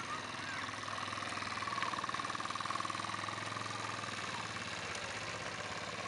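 A small engine running steadily with a fast, even pulse, a little louder about two to three seconds in, and a few short chirps near the start.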